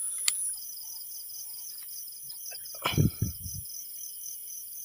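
Night crickets chirping in a steady, even pulse, about three chirps a second, with a higher steady insect trill that stops about half a second in. A click comes near the start, and a brief human vocal sound about three seconds in is the loudest thing.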